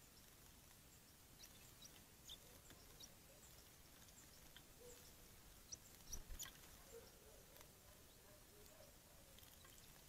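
Faint splashing of blue tits bathing in a shallow water dish, with a slightly louder flurry of splashes about six seconds in, and a few short high chirps.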